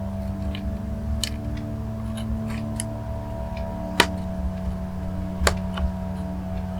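Light ticks and small sharp clicks of small parts and a cable connector being handled inside an opened laptop, with two louder clicks about four and five and a half seconds in, over a steady hum.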